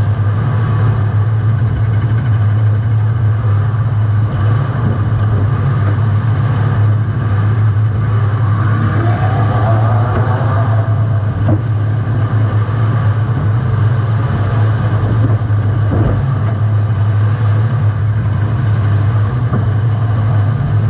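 A compact demolition derby car's engine running hard with a constant heavy drone, heard from a GoPro mounted on the car. A couple of short knocks come through, one about halfway and one about three-quarters through.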